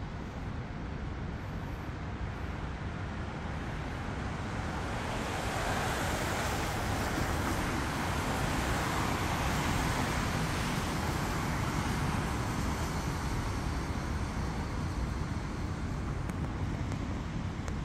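Steady city road-traffic noise, low rumble and hiss, swelling for several seconds about a third of the way in as a vehicle passes, then easing off again.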